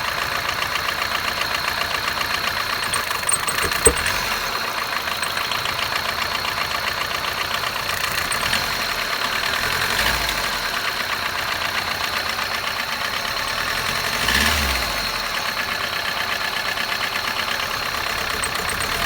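2006 Kia Picanto's four-cylinder petrol engine idling after a cold start, with a rapid, steady ticking over the running; the owner cannot tell whether it is an intake manifold leak or lifter tick. A single sharp click comes about four seconds in.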